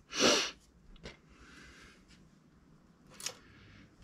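A short, sharp puff of breath, like a snort or hard exhale, just after the start. Faint small handling clicks follow, one about a second in and another near the end.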